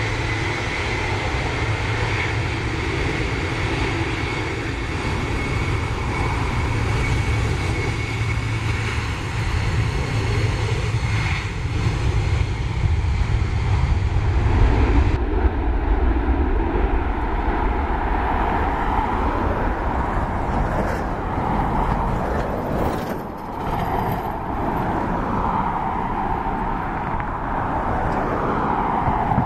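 Boeing 747 freighter's four jet engines at takeoff thrust: a loud, steady roar with a thin whine as the jumbo rolls down the runway and climbs away. About halfway in the sound changes abruptly, losing its high hiss and leaving a deeper, steadier roar.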